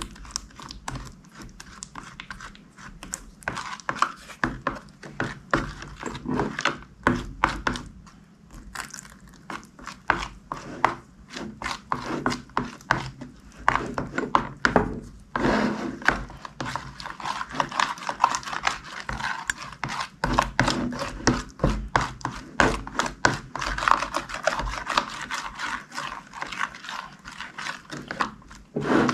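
Slime being squished and kneaded by hand: a dense, irregular run of wet clicks and pops.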